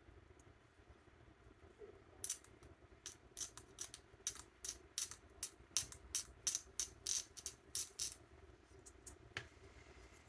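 Quick run of short scratching strokes of a hand tool working small plastic model-kit parts, about two or three a second for some six seconds, over a faint steady hum.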